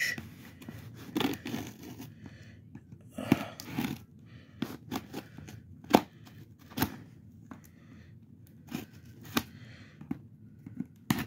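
Scissors cutting into a cardboard box: irregular sharp snips and short scrapes, the loudest snip about six seconds in.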